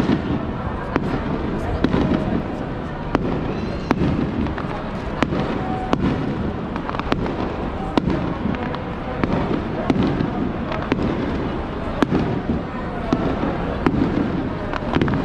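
Fireworks shells bursting overhead, sharp bangs about once a second over a steady crowd murmur.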